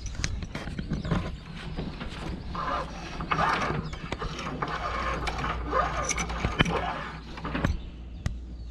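Rope being worked through a pulley block and the daggerboard trunk of a sailboat: irregular rubbing and scraping with many scattered clicks of hardware.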